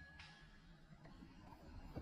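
Near silence, with only a faint low background.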